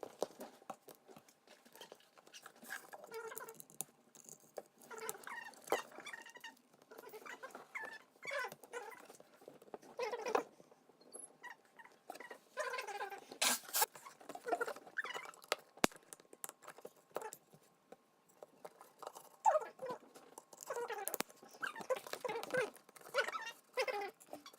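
Sped-up building audio: plastic Lego pieces clicking and rattling, with short high-pitched squeaky voice-like sounds in between.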